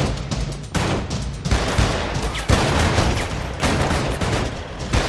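Gunfight: many shots from several guns fired in quick succession, overlapping into a dense, continuous barrage.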